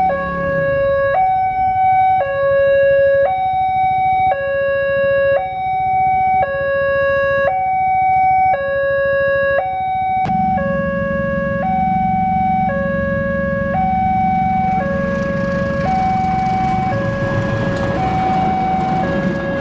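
Railroad level-crossing alarm sounding a two-tone warning, alternating between a low and a higher tone about once a second. About ten seconds in, the steady rumble of a diesel locomotive hauling a Pertamina fuel tank train joins it, and the rushing noise of the wagons' wheels on the rails grows over the last few seconds.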